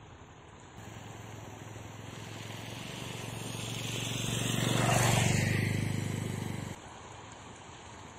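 A motor vehicle's engine passes close by, growing louder to a peak about five seconds in, then fading and cutting off suddenly, over a steady outdoor hiss of wind and moving water.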